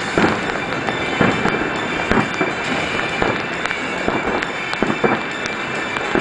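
Aerial fireworks shells bursting in quick, irregular succession: sharp bangs, about two a second, over a continuous noisy wash.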